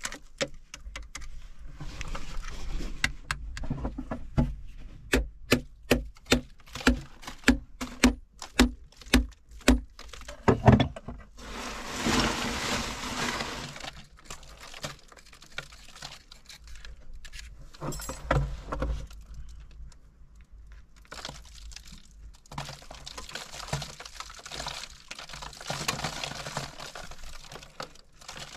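Steel hand tool knocking against a limestone and breccia wall to open natural cracks around a crystal pocket, with sharp strikes about two a second for several seconds. Rough scraping and shifting of broken rock follow.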